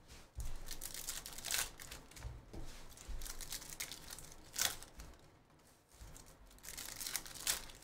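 Foil trading-card pack wrappers being torn open and crinkled by hand, in several short irregular rips and rustles.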